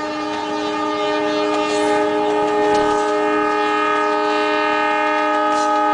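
Metre-gauge diesel locomotive's horn held in one long, steady blast, growing louder as the train approaches.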